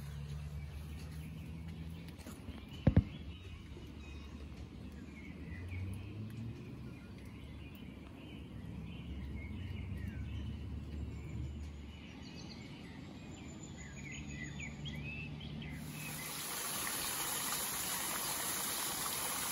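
Outdoor ambience: a low rumble with scattered small bird chirps, and one sharp click about three seconds in. Near the end a steady hiss comes in and stays.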